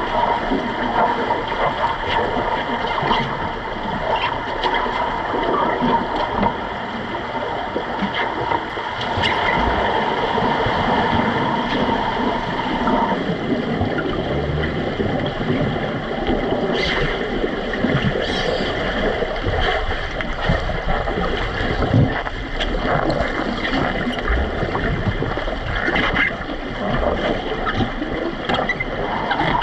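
Underwater noise of a swimming pool heard through a submerged camera during underwater rugby: steady rushing and gurgling of water and air bubbles stirred by players' fins and bodies, with a few muffled knocks. A faint steady hum runs under it and stops about halfway through.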